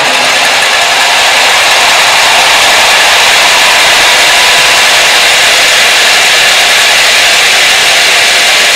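Large stadium crowd cheering, loud and steady.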